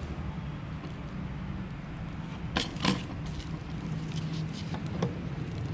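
Double-sided tape and a foam strip being handled at a table: two sharp clicks about two and a half seconds in and a few faint ticks, over a steady low hum.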